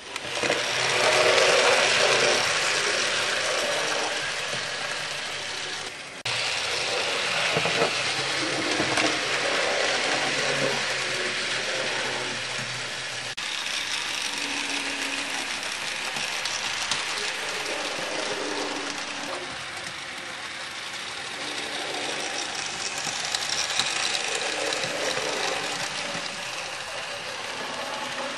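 HO-scale model train running along its track: a steady mechanical running noise from the motor, gears and wheels that comes in suddenly at the start.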